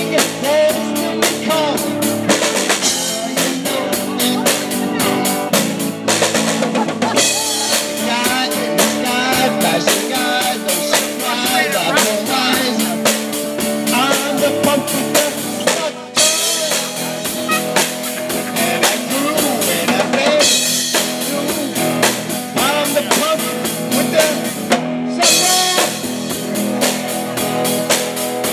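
Live rock band playing an instrumental passage, driven by a full drum kit with snare, bass drum and busy cymbals over guitar. The cymbals drop out briefly twice, about halfway through and near the end.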